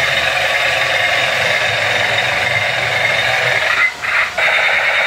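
A battery-operated toy tank's electronic machine-gun sound effect playing loudly through its small built-in speaker, a continuous rapid rattle that breaks off briefly about four seconds in and then starts again.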